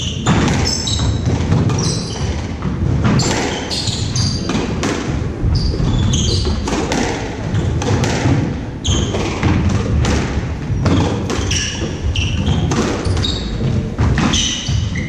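Squash rally: repeated sharp knocks of racket on ball and the ball striking the court walls, with short high squeaks of court shoes on the wooden floor.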